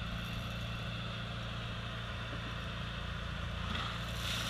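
A fishing boat's engine running steadily, a low even drone, with a brief louder noise near the end.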